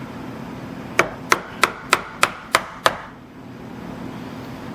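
Hammer tapping a chisel into a wooden door jamb, gouging out the recess for a new striker plate: seven quick, even strikes, about three a second.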